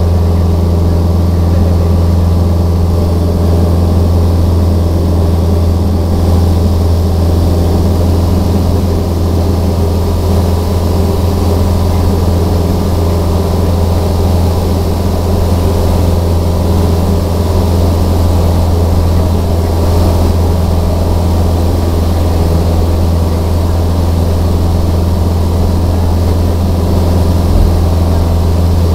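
Light aircraft's engine and propeller droning steadily and loudly, heard from inside the cabin.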